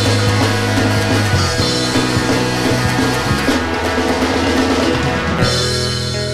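Rock band playing an instrumental passage with no vocals: drum kit and cymbals over electric guitars and bass. About five seconds in the drums and cymbals stop and the guitars carry on.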